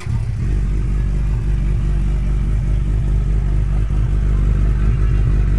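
Kawasaki Z1000 inline-four motorcycle engine running steadily through an aftermarket Prospeed Shark titanium exhaust, a deep, even exhaust note that cuts in suddenly and holds without revving.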